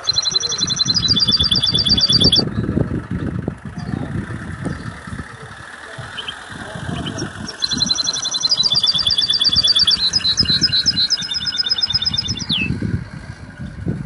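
Caged finch singing: two runs of rapid, high trilled notes, each run switching from one repeated note to another, a short run at the start and a longer one beginning about halfway through. An uneven low rumble runs underneath.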